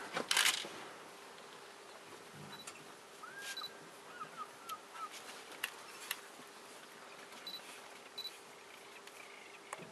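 Cameras clicking now and then, with several short, high beeps typical of autofocus. A brief run of four chirps comes a few seconds in.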